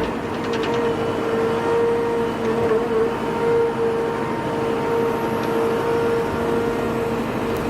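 A machine engine running steadily at a constant speed, with a steady whine over a rough mechanical rumble.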